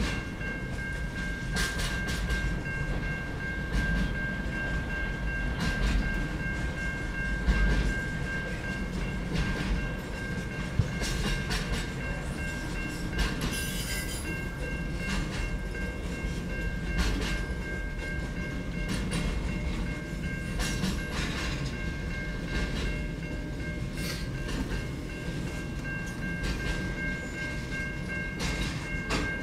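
Container wagons of a long freight train rolling past at speed: a steady rumble of steel wheels on rail with irregular clicks and clunks, over which a thin, steady high whine rings.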